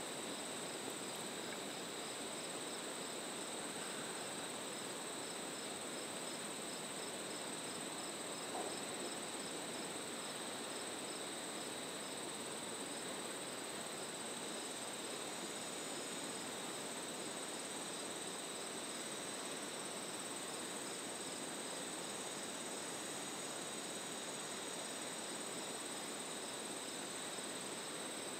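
A chorus of crickets and other insects singing. Steady high trills run alongside a row of evenly repeated chirps, over a soft even hiss.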